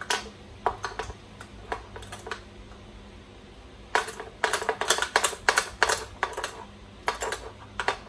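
Small metal hand tools clicking and clinking against the metal parts of an RC truck chassis while screws are worked loose: a few scattered sharp taps, then a dense run of clinks from about four seconds in.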